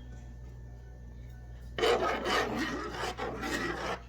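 Utensil stirring and scraping against a pot of thick cheese sauce, a rasping rub that starts about halfway through.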